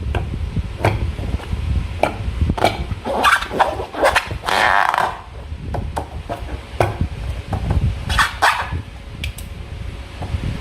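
Slime being squeezed and worked by hand: irregular wet squelches and sticky clicks, with a few longer squishy bursts, over low handling rumble.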